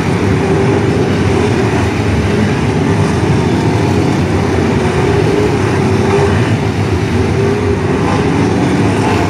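A pack of figure-8 race car engines running together on the track, a loud, steady mass of engine noise.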